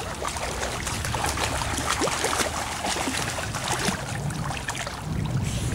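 Shallow river water splashing and sloshing steadily as dogs and a person wade through it, many small splashes one after another.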